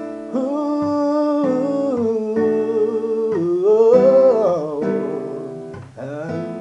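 A man singing long held vowels over a strummed acoustic guitar; his voice glides up to its loudest, highest note about four seconds in, then falls away.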